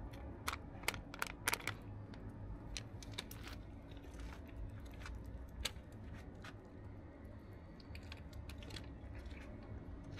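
Tabby cat chewing wet cat food: sharp wet smacking clicks, many close together in the first two seconds, then scattered. A low steady rumble sits underneath.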